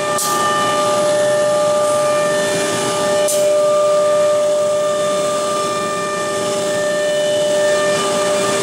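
HSD spindles of a woodworking CNC router running at high speed and cutting a particleboard panel: a steady high-pitched whine of several tones over a rushing noise. Two short bursts of hiss, near the start and about three seconds in.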